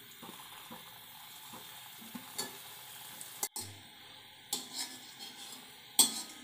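Gulab jamun balls frying in ghee over a low flame, a soft steady sizzle, while a wire spider skimmer turns them and clicks now and then against the metal kadai; the loudest clink comes about six seconds in.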